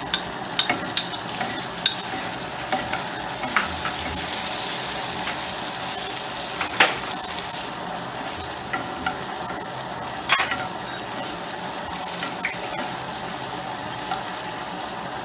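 Onion, garlic and curry leaves frying and sizzling in hot oil in a pan while being stirred, with scattered sharp clicks of the utensil against the pan, the strongest about seven and ten seconds in.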